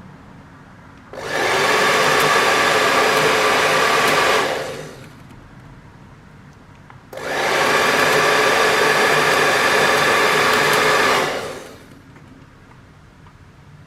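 Drone's electric rotors whirring in two runs of about four seconds each; each run starts abruptly and dies away gradually.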